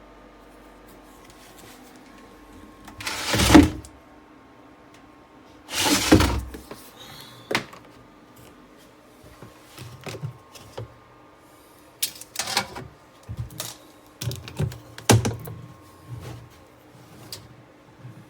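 Auertech portable twin-tub washing machine running: a faint steady motor hum with two loud noisy surges about three and six seconds in, then irregular low knocks and clicks.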